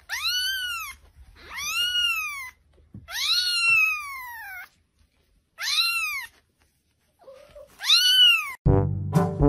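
A black kitten mewing five times: high, thin calls that rise and then fall in pitch, each lasting from about half a second to a second and a half. Brass music starts near the end.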